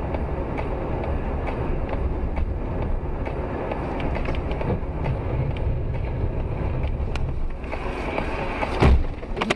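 Steady low road and tyre rumble of a car driving on a winter highway, heard from inside the car. Near the end comes one sharp, loud bang, as a sedan skidding sideways across the road hits the car.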